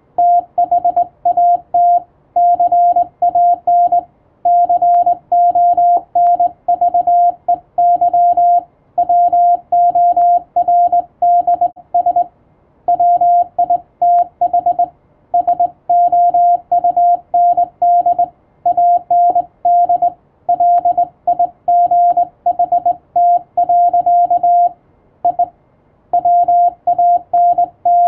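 Morse code (CW) sent as a steady mid-pitched beep, keyed on and off in dots and dashes, with short breaks between words every few seconds.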